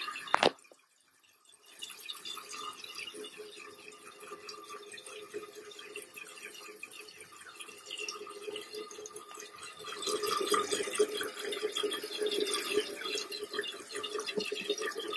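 A sharp click, then water running and trickling into a toilet tank as a newly fitted float-cup fill valve refills it, growing louder about ten seconds in.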